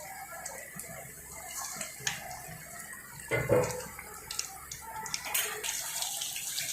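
Chicken pakoras sizzling in hot white oil in a kadai as they deep-fry, a steady hiss with small crackles. A dull knock about three seconds in.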